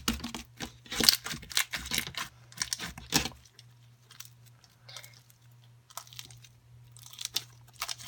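Foam bead slime being squished and stretched by hand: a crunchy, crackling run of small clicks and pops from the foam beads and trapped air. The crackling is dense for about the first three and a half seconds, then thins to a few scattered clicks over a low steady hum.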